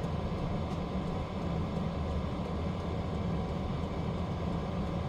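Hcalory 8 kW 12 V diesel heater running, a steady low rumble.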